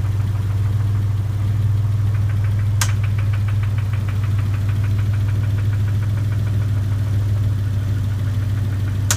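Dodge Stealth's 3.0-litre V6 idling with a rapid, even ticking over its steady hum, which the owner takes for engine knock and a bent valve. A single sharp click about three seconds in and another near the end.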